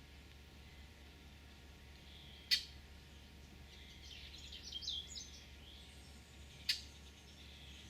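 Faint bird calls: two short, sharp chips about four seconds apart with a brief burst of twittering between them, over a low steady hum.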